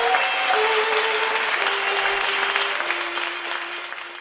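Audience applauding, with music behind it: a few long held notes that step down in pitch one after another. Both fade out near the end.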